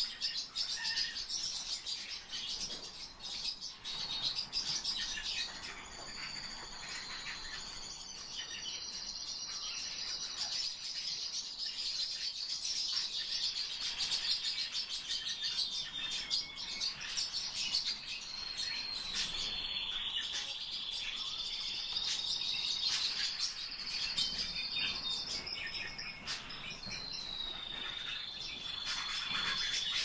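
Pet finches, among them a male Eurasian bullfinch, chirping and singing without a break. From about six seconds in, long held high whistles run through the twittering and step down in pitch now and then.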